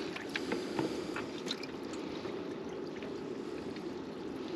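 Aerator bubbling steadily in a bucket of live prawns, with a few faint clicks of the prawn being handled and hooked in the first second or so.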